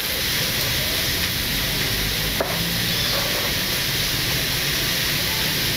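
Chicken pieces sizzling in a very hot frying pan, a steady even hiss, searing at high heat to a crisp crust. A single click about two and a half seconds in.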